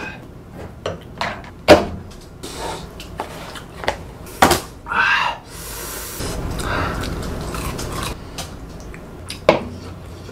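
Scattered knocks and clicks of tableware being handled: a plastic tub and bowls set down on a wooden table, with a wooden spoon working in a rice bowl.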